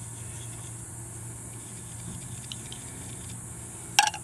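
Steady low hum and hiss, with a few faint ticks midway and one sharp click near the end, from handling a PVC tee fitting and an open can of PVC primer.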